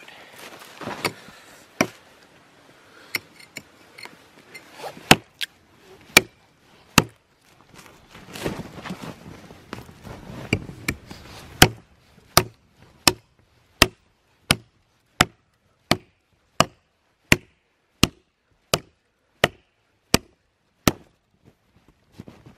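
Axe chopping through a dead fallen log: scattered blows at first with some scuffing in between, then a steady run of strikes about one and a half a second until the log is cut through.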